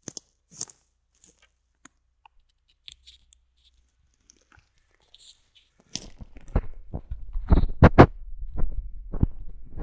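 Sparse faint crackles of wood and twigs, then from about six seconds in a run of loud irregular cracks, crunches and heavy thuds of breaking spruce branches and wood. The chainsaw is not running.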